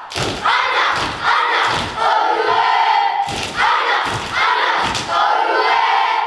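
Kapa haka group of children chanting and shouting in unison in haka style, in forceful phrases broken by short pauses, with about two dull thumps a second from stamping and slapping.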